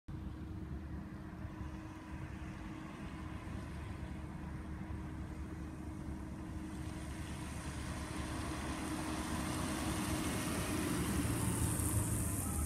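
A low engine rumble running steadily with a constant hum, growing louder with added hiss near the end.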